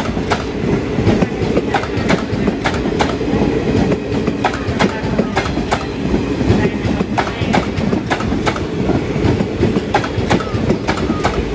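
Indian Railways sleeper-class passenger coaches running past at speed: a steady heavy rumble with frequent, irregular clickety-clack of the wheels striking rail joints.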